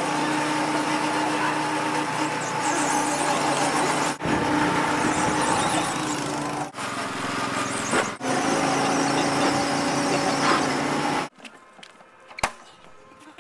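Go-kart engine running steadily at speed, with brief breaks about 4, 7 and 8 seconds in. It stops abruptly near the end, leaving a much quieter stretch with one sharp click.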